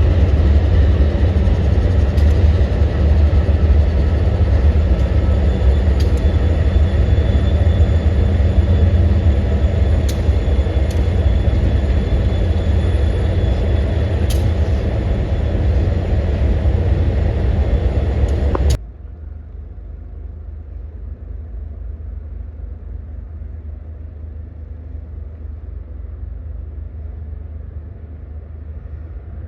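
Freight train rolling past: a heavy low rumble with scattered sharp metallic clanks. About two-thirds of the way through it cuts off abruptly, leaving a much quieter low rumble.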